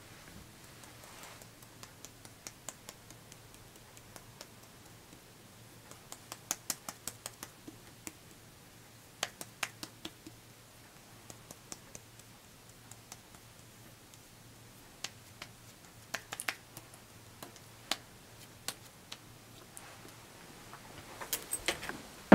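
Fingertips patting and tapping cream onto facial skin: soft, sharp taps, some single and some in quick runs of several. Near the end a plastic cream jar is handled at a bedside table.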